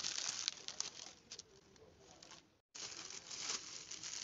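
Plastic and paper packaging rustling and crinkling as it is handled and unwrapped, loudest in the first second and fainter after. It cuts out completely for a moment about two and a half seconds in, then the rustling picks up again.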